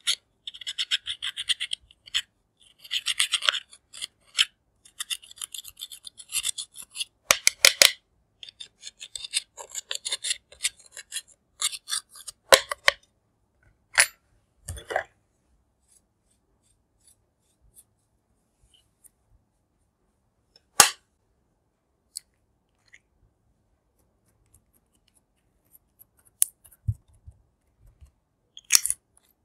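A small metal spatula scraping pressed eyeshadow out of a plastic palette's pans, a dry rasping scratch in quick bursts of strokes. After about thirteen seconds the scraping stops, leaving a few scattered sharp taps and clicks.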